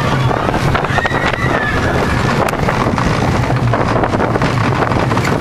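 Intamin mine train roller coaster running at speed along its steel track, heard from the front seat: steady wind noise on the microphone over the rumble of the train's wheels.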